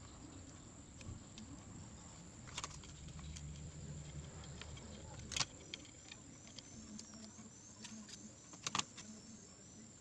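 Scattered light clicks and taps of small objects being handled, loudest about five and a half seconds in and as a quick pair near nine seconds, over a faint steady high whine.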